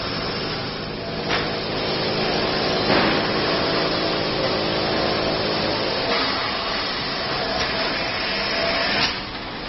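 Automatic film cutting and stacking machine running: a steady rushing noise with several humming motor tones, broken by a few sharp clacks, about a second in, about three seconds in and near the end.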